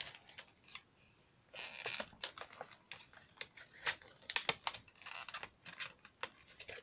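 Scissors being handled in their plastic pouch: crinkling and a quick, irregular run of sharp clicks and taps, starting about a second and a half in.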